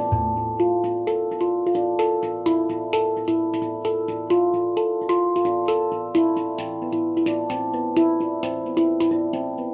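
Baopan handpan tuned to A2, played with the hands: a steady run of ringing metallic notes, accented about twice a second with lighter taps in between. The deep low note is struck right at the start and keeps ringing under the higher notes.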